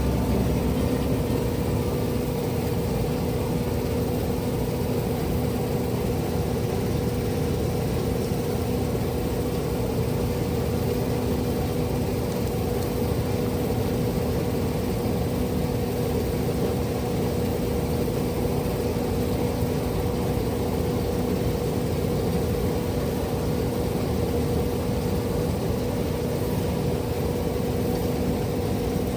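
Combine harvester running steadily at harvesting: a constant engine and machinery drone with an even hum that holds at one pitch.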